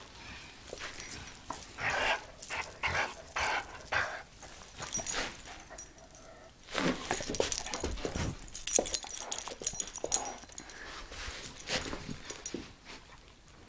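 A dog making short vocal sounds during rough play over a sock, several in quick succession about two to four seconds in. Scuffling and sharp knocks close to the microphone come in the second half.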